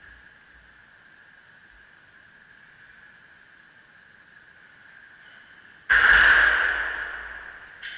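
A barbell loaded with 405 lb set back onto the bench's steel rack hooks: one sudden loud metallic clang about six seconds in that rings out and fades over about a second and a half, then a smaller knock near the end. A faint steady high-pitched hum sits underneath.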